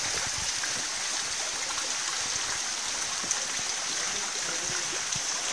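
Steady rushing of running water, like a stream, with a constant high hiss and no breaks.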